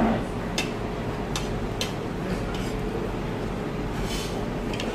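Eating at a restaurant table: a few sharp crunches in the first two seconds as fried chicken is bitten and chewed, over a steady low room hum. A brief tissue-paper rustle comes about four seconds in.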